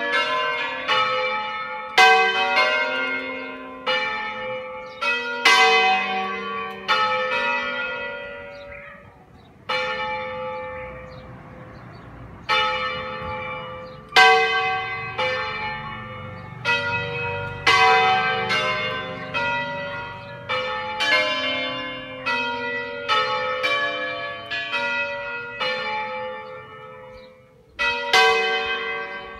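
A five-bell church peal in G, cast by Ottolina of Seregno in 1947, rung in sequence. Separate strokes come about one to two a second, each ringing out and fading, with a pause of a few seconds about ten seconds in.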